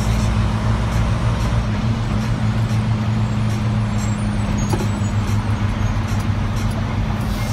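Vehicle engine running with a steady low drone, heard from inside the cab, over the hiss of surrounding freeway traffic.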